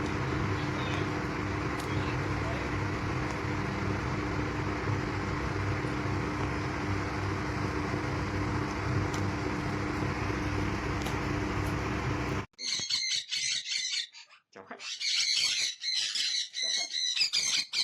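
A steady droning hum with a constant low tone, like a motor running, cuts off abruptly about two-thirds of the way in. A talking parrot then repeats the Vietnamese greeting 'Chào khách' ('hello, guest') several times in a high-pitched, squawky voice.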